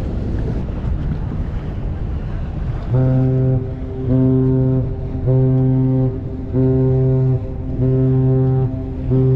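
Wind and choppy water rush, then about three seconds in a deep ship's horn sounds a string of short blasts on one steady low note, six in a row, each under a second, about one every 1.2 seconds.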